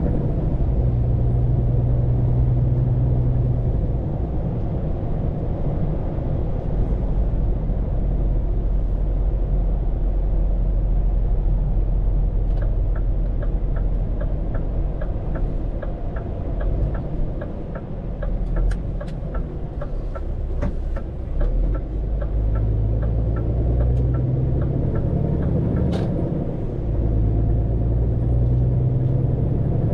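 Scania P410 truck's diesel engine heard from inside the cab, pulling at the start, easing off through the middle, and pulling again near the end. Midway an even clicking starts, about three clicks a second, and lasts around twelve seconds, like a turn-signal relay ticking. Near the end there is a single sharp click.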